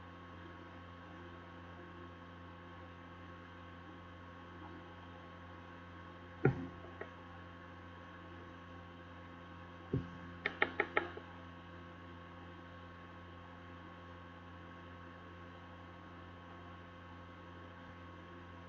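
Steady electrical mains hum, with a sharp knock about six and a half seconds in, another about ten seconds in, and a quick run of four or five clicks straight after.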